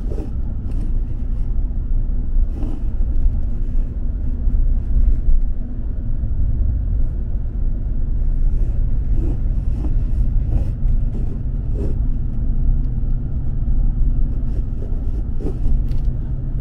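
Steady low rumble of road and engine noise inside a Ram pickup's cab while driving, with a few light knocks.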